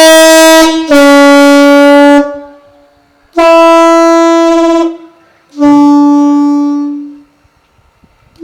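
Class 56 locomotive air horn sounding four blasts, alternating a high and a low note: high, low, a short pause, high, then a low note that fades away over its last second. The compressor had cut out, so the horn is short of air for a proper long blast.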